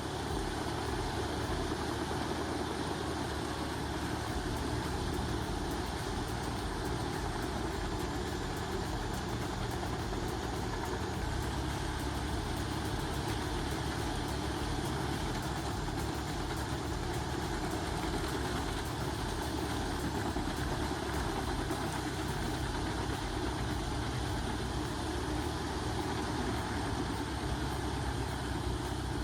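Heavy engine running steadily, its low note shifting slightly about eleven seconds in.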